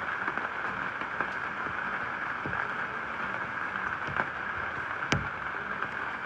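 Steady rain falling, a constant hiss with scattered drop ticks and one sharper tap about five seconds in.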